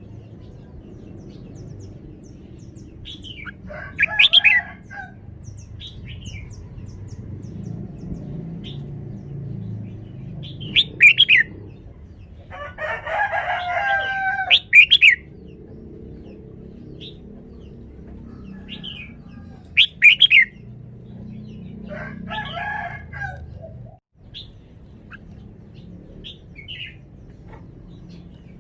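Red-whiskered bulbul singing short, loud whistled phrases every few seconds, over a steady low background rumble.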